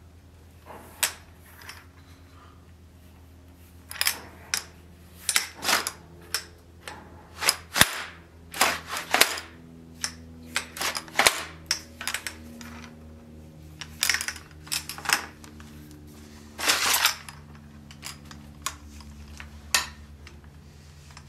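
Irregular sharp clicks and knocks of a sword and its leather scabbard with brass fittings being handled, over a steady low hum.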